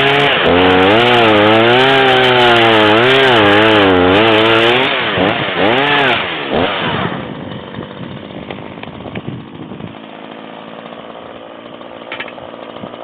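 Chainsaw cutting wood, its engine pitch wavering up and down under load, then let off and dropping to a quiet idle about halfway through.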